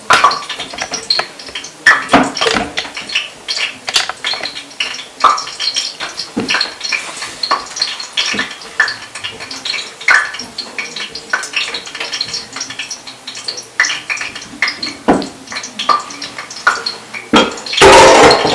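A spoon clinking and scraping against a bowl and blender jug, in many short irregular knocks, as thick blended bean batter is scraped out and poured back into the blender. Near the end comes a short, louder rushing burst.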